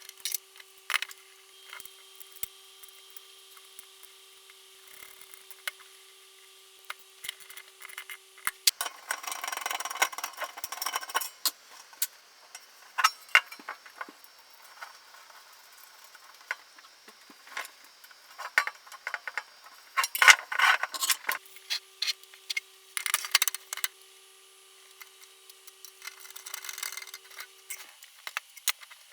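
Scattered clicks, knocks and rubbing scrapes of the bench power supply's case and parts being handled and fitted back together, with two longer spells of scraping. A faint steady hum drops out a third of the way in and returns later.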